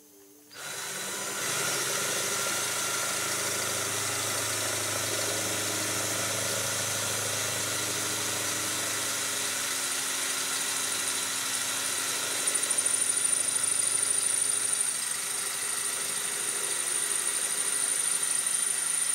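Power drill running steadily with a 7/32-inch bit, drilling out the plug over a Mikuni carburetor's idle mixture screw. It starts about half a second in and gets a little louder for a couple of seconds past the middle.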